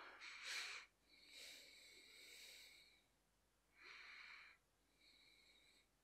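Near silence, with a few faint, short breathy hisses.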